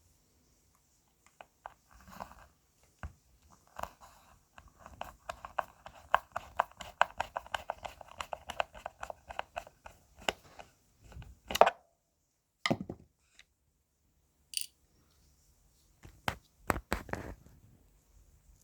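Hand tools working on a subwoofer's casing during disassembly: a fast run of small clicks and scrapes, then a few sharper knocks.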